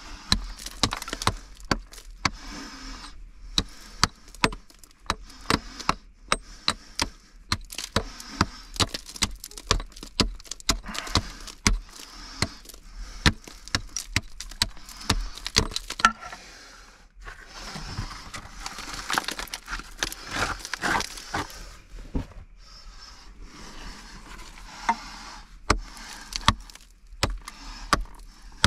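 Irregular sharp knocks and clinks of hard objects, with scraping and rustling between them and a longer stretch of scraping about two-thirds of the way through.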